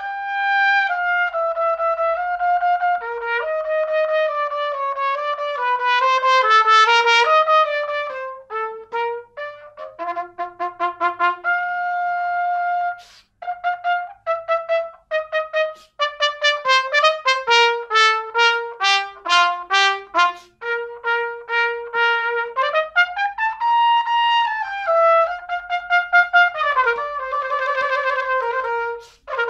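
A solo trumpet playing a melodic passage, mixing held notes with quick runs of short detached notes, with a brief break about halfway through.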